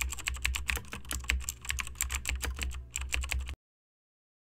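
Fast, irregular computer keyboard typing clicks, which stop abruptly about three and a half seconds in.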